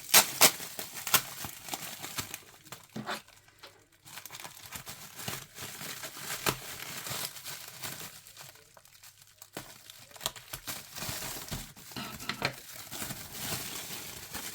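Plastic packaging crinkling and rustling as it is handled and pulled open, with several sharp crackles, briefly quieter partway through.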